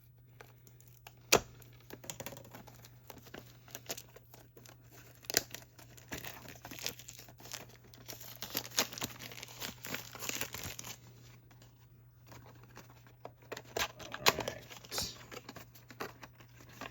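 Toy blind-box packaging being torn open and crinkled by hand, with scattered sharp clicks and taps; the loudest clicks come about a second in and near the end.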